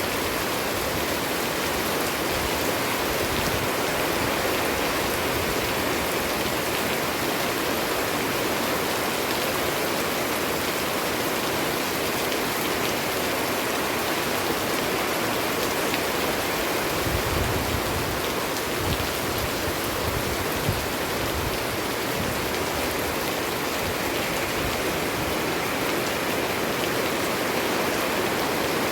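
Rain falling steadily, an even hiss with no letup, and a few brief low rumbles about two-thirds of the way through.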